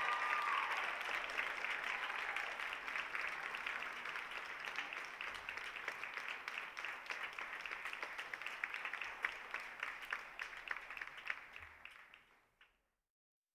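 Audience applauding, dense clapping that slowly fades and stops short near the end. The last note of the music rings out under it at the start.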